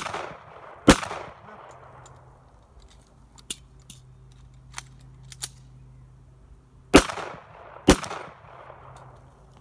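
Pistol fired in two pairs: two shots about a second apart at the start, a few faint clicks of a magazine reload, then two more shots about a second apart near the end. Each shot echoes briefly.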